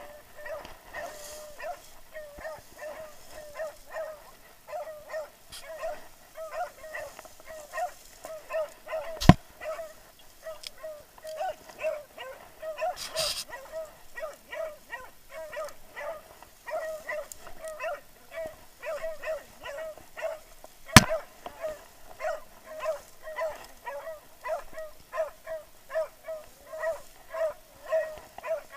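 Hunting hounds baying in a steady run of barks, one or two a second, as they give tongue on a chase. Two sharp knocks cut in, about a third of the way through and again after the middle.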